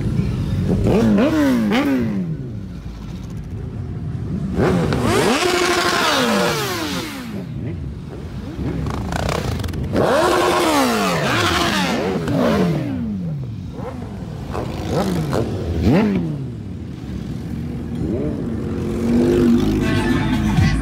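Sport motorcycles passing close by one after another, each engine note dropping in pitch as it goes past.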